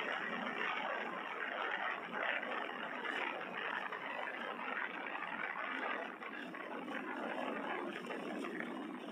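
Steady rushing road and wind noise of a moving vehicle, with no distinct engine note standing out.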